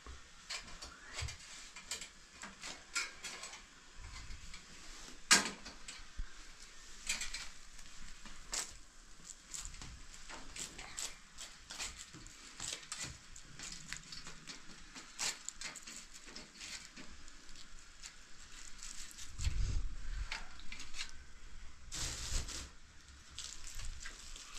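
Scattered light clinks and taps of a metal wire grill basket being handled and closed over food, with a brief rustle near the end.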